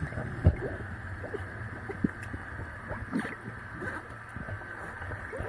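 Muffled underwater noise picked up by a camera in a waterproof housing: a steady low hiss with scattered small knocks and creaks, and one sharper knock about half a second in.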